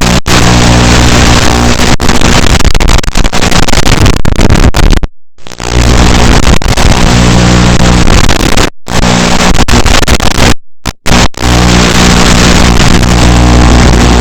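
Loud buzzing static from an analog FPV video link: a harsh hiss with a steady low buzz that keeps one pitch. It drops out to silence abruptly about five times, the way a breaking-up video signal does.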